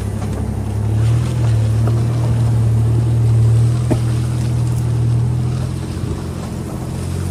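Off-road vehicle engine running at low speed on a dirt trail, a steady low drone that grows louder about a second in and eases off near the end.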